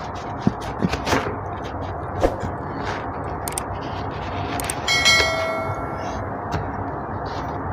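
Scattered small snaps and crackles of orange peel being torn off by hand. About five seconds in, a click and then a short bell-like ding ring out: the sound effect of an on-screen subscribe-button animation.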